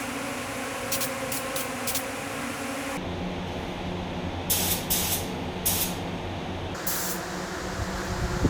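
Primer being sprayed onto a cast-iron stove in a series of short spray bursts, over a steady low hum.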